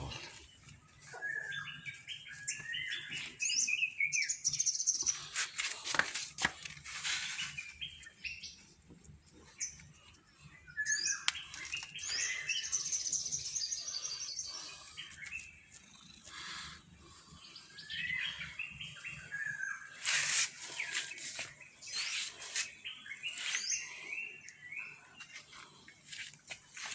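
Birds chirping and calling, many short chirps and quick trills one after another, with a few brief bursts of noise mixed in.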